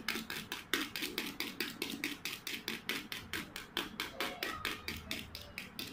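Small hand whisk beating egg whites in a steel bowl, its wires ticking against the metal about five or six times a second in a steady rhythm. The whites are being whipped toward a thick, cream-like foam.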